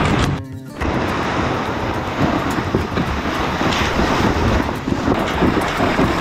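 Plastic Pelican sled dragged over snow and brush: a continuous rough scraping rumble, with branches brushing past. It drops away briefly about half a second in.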